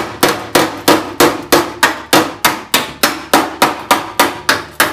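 Body hammer striking the sheet-metal front fender of a 1966 Plymouth Belvedere against a flat dolly held behind the panel, in a steady run of sharp metallic blows, about three and a half a second, each ringing briefly. The blows work out a slight dip that the welding clamp pulled into the panel near a fresh weld.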